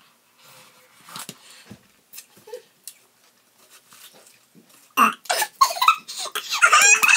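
Faint spoon scrapes and slurps at a hollowed watermelon half. About five seconds in comes a sudden throaty cough-like outburst, then two women laugh hard.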